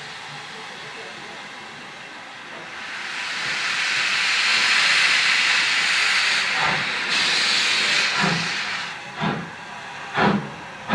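Steam locomotive starting away: a loud hiss of escaping steam, most likely from open cylinder drain cocks, swells up a few seconds in. Then the first slow exhaust chuffs come in, about one a second, growing stronger towards the end.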